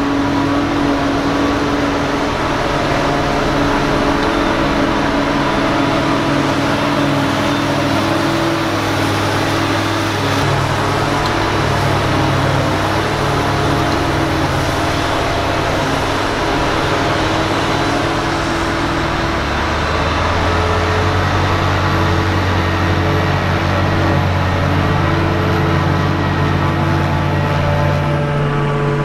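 Claas Jaguar 930 forage harvester running under load, picking up and chopping a grass swath, together with the diesel engine of the Case IH tractor pulling the forage trailer alongside. The steady engine drone drops to a lower note about two-thirds of the way through.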